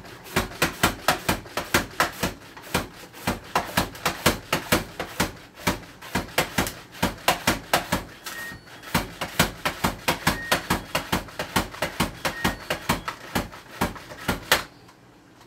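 An onion being sliced in a plastic upright push-down slicer: rapid clacking strokes as the pusher drives the onion through the blade, about four a second with a short pause or two, stopping about a second before the end.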